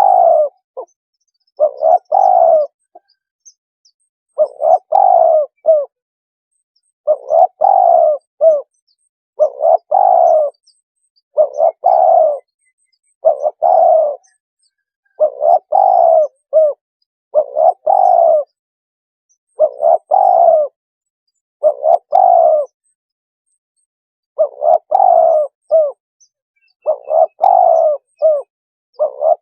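Spotted dove cooing, a recorded decoy call played to lure wild doves. About a dozen short, loud phrases of several quick coos each, one every two seconds or so, with a slightly longer pause a little past the middle.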